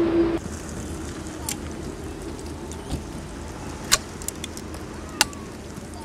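Butter sizzling softly in a frying pan on a portable gas camping stove, with a few sharp clicks along the way. A steady hum cuts off about half a second in.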